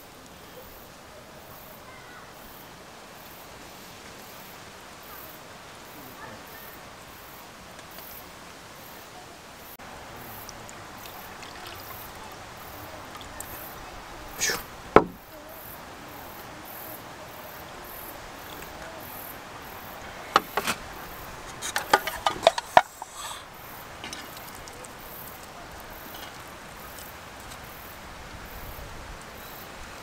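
Insects chirping in a faint, even high pulse over a steady outdoor hiss, with a few sharp clicks and knocks of chopsticks and utensils on a cast-iron griddle pan, a cluster about halfway through and more around two-thirds of the way.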